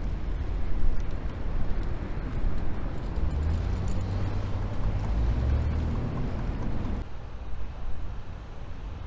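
A boat engine runs with a steady low rumble, along with water and wind noise, its hum swelling for a few seconds in the middle. About seven seconds in it cuts abruptly to a quieter, fainter outdoor rumble.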